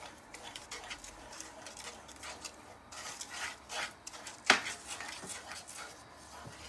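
Wooden spatula stirring a thick, grainy milk-and-sugar mixture (kalakand) in a nonstick pan, with irregular scraping strokes. There is a single sharp knock about four and a half seconds in.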